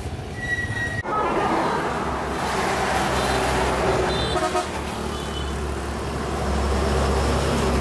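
Road traffic: a motor vehicle's engine running close by, with short horn toots, one just before a second in and a couple more around the middle. The engine's low hum grows louder near the end.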